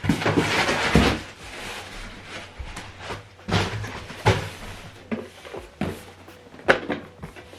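Rustling and knocking from a large cardboard box being handled, with a run of rustles in the first second and several sharp knocks later on.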